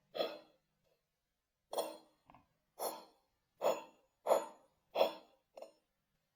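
Kinetic sand being squished and dropped in slowed-down playback: a series of about seven short soft hits, spaced roughly half a second to a second apart, with silence between them.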